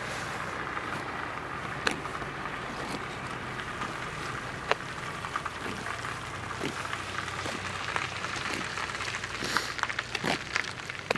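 Radio-controlled Yak-54 model aeroplane's motor droning steadily in the distance, with scattered sharp clicks that come more often near the end.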